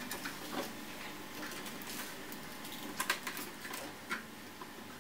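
Irregular small mechanical clicks and rattles of a portable reel-to-reel tape recorder being handled, its controls and tape worked by hand, with a sharper cluster of clicks about three seconds in and another just after four seconds.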